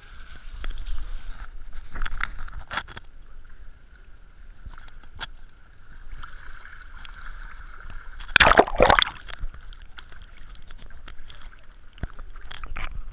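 Water sloshing and gurgling around swimmers and a camera held at the water's surface, with scattered small splashes and a loud double splash about eight and a half seconds in.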